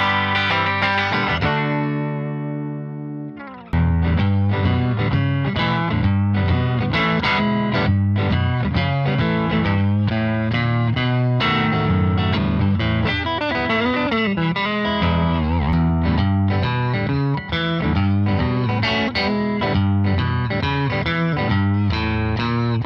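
Reverend Eastsider S electric guitar with single-coil pickups, played through an amp with overdrive. A chord rings out and fades over about two seconds; then busy chord-and-riff playing resumes.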